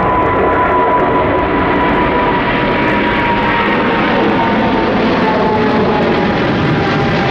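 Boeing 777F freighter's twin GE90 turbofan jet engines at takeoff thrust on departure: a loud, steady jet roar with a whine that slowly falls in pitch as the aircraft goes by.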